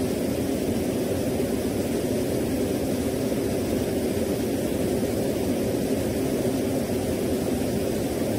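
Steady, even drone-like noise, strongest in the low-middle range with no tones or beats, presented as the "sound" of Uranus's moon Perdita.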